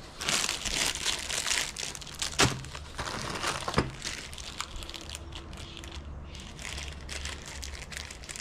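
Plastic packaging crinkling and rustling as it is handled, most heavily in the first four seconds, with a couple of sharp clicks, then lighter, scattered crinkles.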